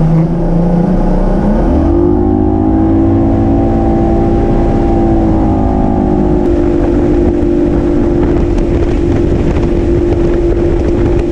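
Bass boat's outboard motor running under way. Its pitch rises about two seconds in as it speeds up, then holds steady at cruising speed.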